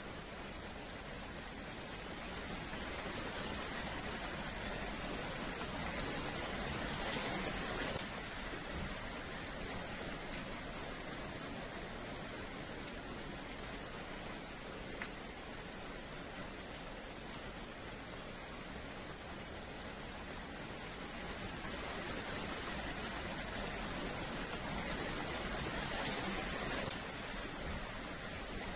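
Steady rain falling on a paved yard and metal fencing, swelling louder twice: around seven seconds in and again near the end.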